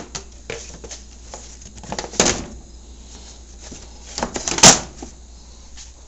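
A few scattered clunks and knocks of handling, with two sharper ones about two seconds in and near the end, the second the loudest. No engine is running.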